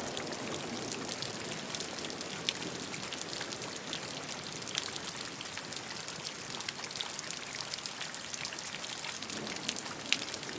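Falling water pattering and splashing: a steady hiss with many small drop clicks scattered through it.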